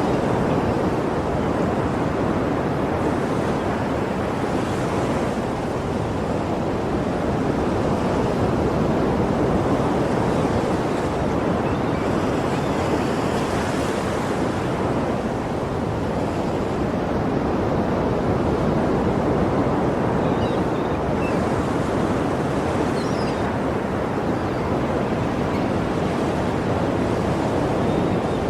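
Sea surf: a steady rush of waves breaking and washing ashore, swelling every seven or eight seconds.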